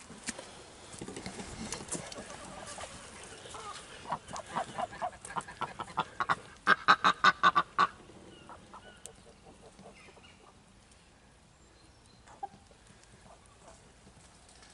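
Domestic waterfowl calling: a run of repeated calls starts about four seconds in, grows louder and quickens to about six a second, then stops near the eight-second mark. A few quieter calls follow.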